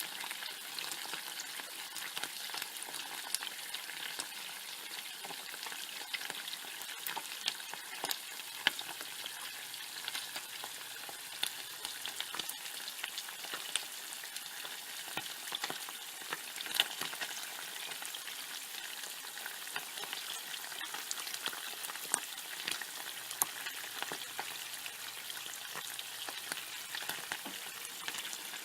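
Bacon frying in a pan: a steady high sizzle scattered with frequent sharp crackles and pops of spitting fat.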